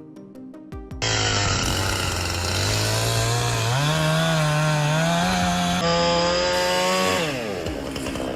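Chainsaw cutting into wood at full throttle. It starts abruptly about a second in, climbs in pitch partway through, then drops as the throttle is let off near the end.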